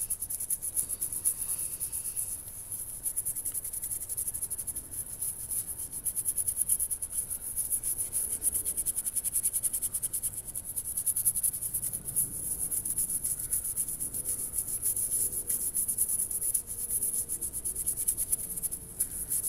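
Toothbrush bristles scrubbing a steel knife blade with baking soda paste in fast back-and-forth strokes, a continuous scratchy rasp, working the rust off the blade.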